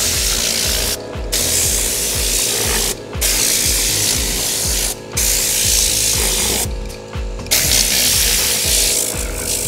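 Tornador compressed-air cleaning gun blasting air into car floor carpet with a loud hiss, blowing out crumbs and dust. It runs in bursts of about two seconds, cut by short pauses each time the trigger is let off.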